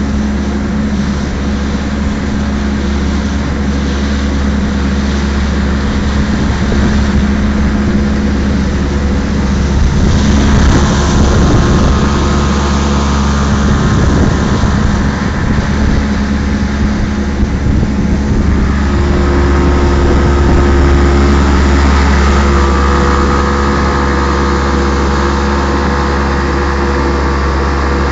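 Motorboat's Mercury 90 outboard engine running steadily at speed, with rushing water and wind noise that swell for a stretch in the middle. The engine note shifts a little just past the middle.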